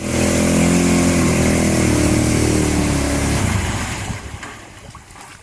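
Arctic Cat 650's engine running hard at steady high revs, its pitch easing slightly, then fading away after about three and a half seconds.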